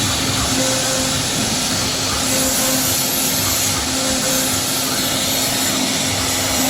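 CNC router spindle cutting MDF: a steady, loud machining noise, with a low tone that drops out and comes back several times.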